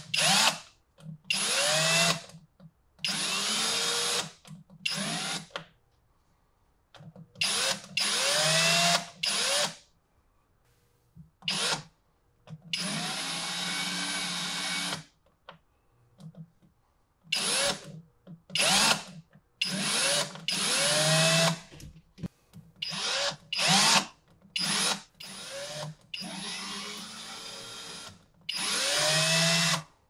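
Battery-operated power drill driving woodscrews into plywood and 2x4 lumber in many separate runs, its motor whine rising in pitch as it spins up and dropping as it slows, with short pauses between screws.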